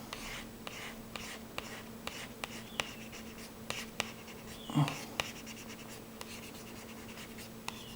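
Plastic card scraping and dragging across a laptop screen protector film, pressing out an air bubble, with scattered small clicks and ticks. A faint steady hum runs underneath, and a short voiced sound comes a little before the 5-second mark.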